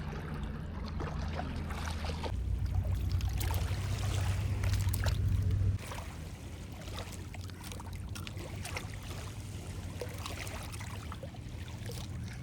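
A low motor hum over water splashing and lapping; the hum stops suddenly about six seconds in, leaving the splashing.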